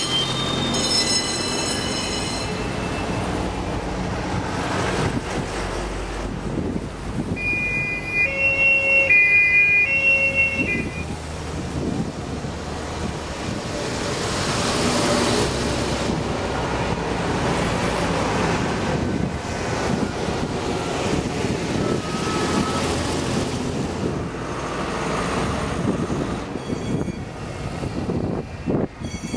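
Vintage fire engines driving past one after another, their engines running. About eight seconds in, a two-tone fire-engine horn sounds for a few seconds, alternating between two pitches.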